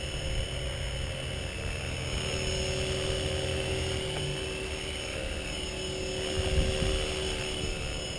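Blade 450 electric RC helicopter running in flight: a steady motor and gear whine over a low rumble, with a brief louder low bump about six and a half seconds in.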